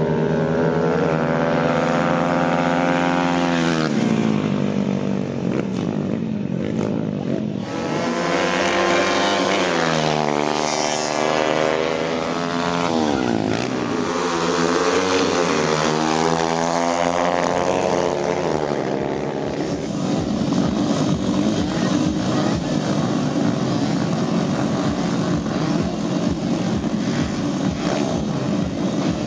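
Motorcycle engines revving hard through the gears on a drag run, the pitch climbing and falling away with each gear change, several runs in a row. After about twenty seconds this gives way to a steadier, lower engine hum.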